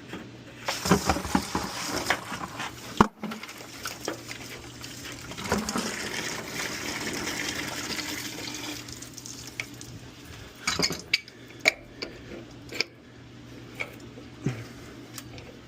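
Water rushing out during a water heater flush, with a steady low hum underneath. Sharp metal clanks and clinks come through about a second and three seconds in, and several more in the second half after the water noise dies down.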